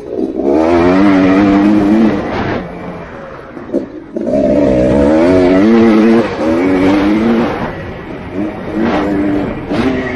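Yamaha YZ490 two-stroke single-cylinder engine being ridden hard, the revs rising and falling as the throttle is opened and shut: two long full-throttle pulls, one near the start and one near the middle, then shorter bursts.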